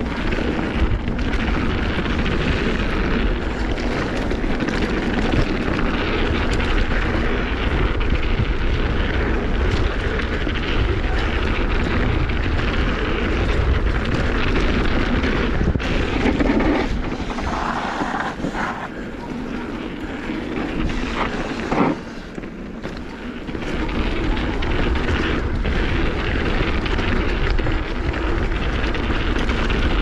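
A mountain bike riding fast down a dirt singletrack, with wind buffeting the microphone as a steady low rumble and tyre and trail noise over it. Scattered knocks and rattles come from the bike over rough ground, and the noise eases for a few seconds past the middle.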